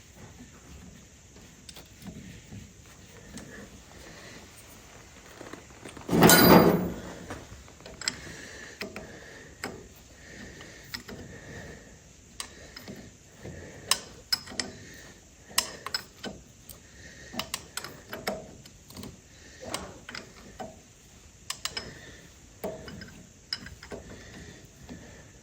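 Hand work on metal parts: one loud clatter about six seconds in, then irregular sharp clicks and knocks of tools on metal.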